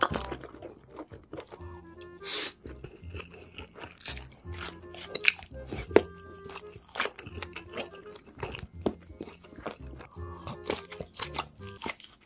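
Close-miked eating: crunchy bites and chewing of grilled sausages, a series of sharp crunches at uneven intervals, over background music.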